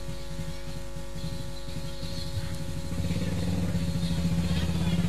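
An engine running with a fast even pulse, getting louder about three seconds in, with faint children's voices behind it.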